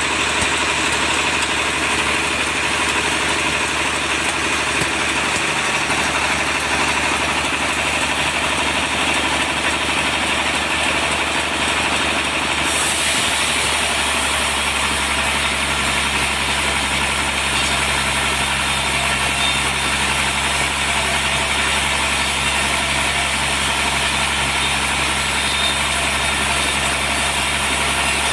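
Sawmill machinery running steadily with a constant mechanical drone; its sound changes about halfway through.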